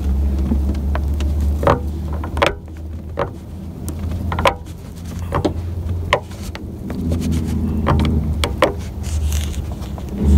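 Plastic dome light lens of a 1997 Toyota Camry being pressed into its housing, giving a string of sharp, irregular plastic clicks and taps as it is worked into place, over a steady low hum.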